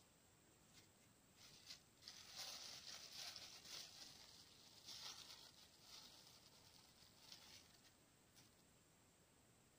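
Near silence with faint, scattered rustling outdoors.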